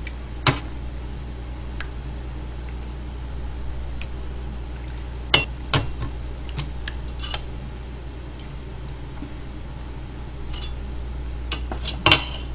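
Metal ladle clinking against a metal cooking pot and a ceramic bowl as stew is ladled out: single clinks about half a second in and twice around five to six seconds in, then a quick cluster near the end, the loudest as the bowl is set down and the ladle put back. A steady low hum runs underneath.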